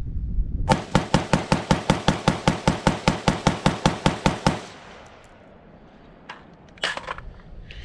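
AR-15 rifle fired rapidly, about twenty shots at roughly five a second, stopping after about four seconds. A single sharp clack follows near the end.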